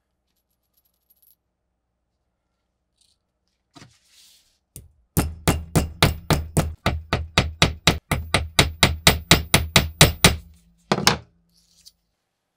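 A hammer rapidly striking a small metal washer on a steel bench block, metal on metal, about four or five ringing blows a second for some five seconds, then a final double blow.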